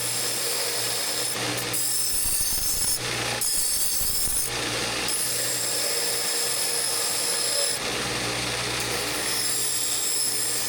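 Bandsaw running with a steady motor hum, its blade cutting stainless steel exhaust tubing, with a high whine that comes and goes.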